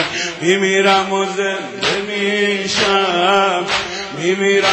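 Male voice singing a Persian Shia mourning lament (noha), with long held notes and wavering ornaments, over sharp rhythmic beats about once a second from mourners beating their chests.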